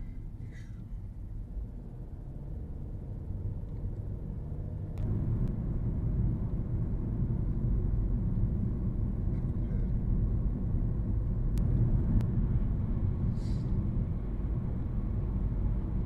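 Car road and engine noise heard from inside the cabin: a steady low rumble that gets louder about five seconds in as the car moves onto the open road.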